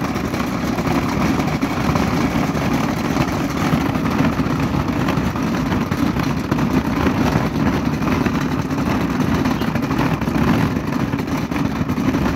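Breville Sous Chef 16 Peel & Dice food processor running its peeling disc, with whole limes rattling and knocking around the bowl as they spin.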